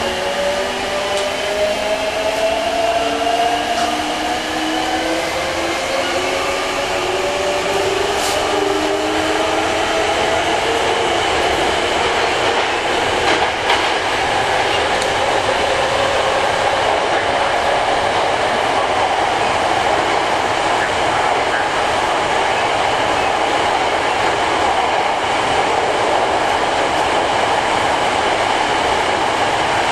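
Hankyu 8300 series electric train heard from inside the car as it pulls away: the traction motors whine in several tones that rise together over the first ten seconds or so. The whine then gives way to a steady rumble of wheels on rail in the tunnel, with a couple of sharp clicks.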